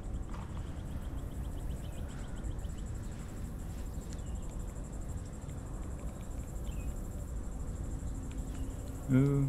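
Insects chirring steadily in high, thin continuous tones over a steady low rumble. A man's voice breaks in briefly near the end.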